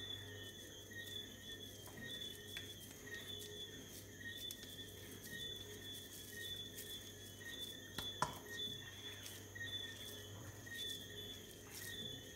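Hands patting and rolling raw ground beef into balls, a soft, faint patting, with one sharp knock about eight seconds in.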